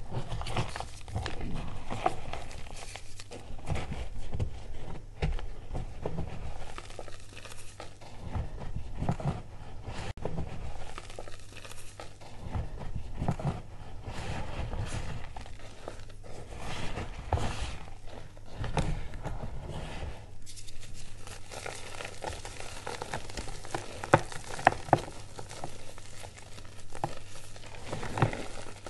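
Hands squeezing and crumbling reformed gym chalk: irregular crunches with soft, powdery rustling. A few sharp cracks stand out near the end.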